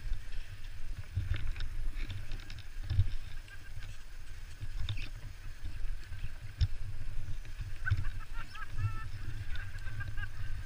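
A body in winter clothing sliding feet-first down a packed-snow ski run, with a steady low rumble of wind and friction on the body-worn camera and scattered scrapes and knocks. A few faint distant calls come in near the end.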